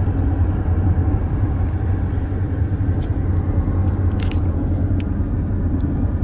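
Steady low rumble of road and engine noise inside a moving car's cabin, with a few faint light clicks about three to four seconds in.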